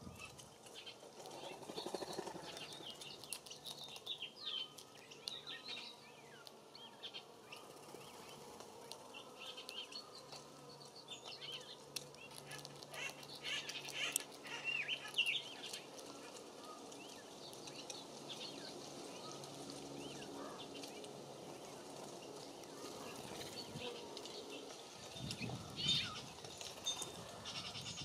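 Songbirds calling around a birdbath: many short, high chirps and call notes scattered throughout, with a brief louder flutter near the end.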